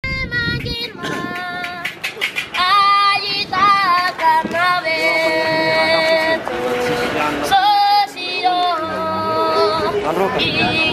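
A child singing in a high voice, holding long notes that slide from one pitch to the next.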